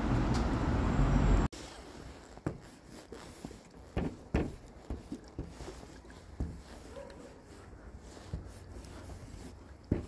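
Loud steady street noise cuts off abruptly about a second and a half in. Then come quiet scattered taps and scrapes of a Grog squeeze marker's felt tip drawn across a laminated sign.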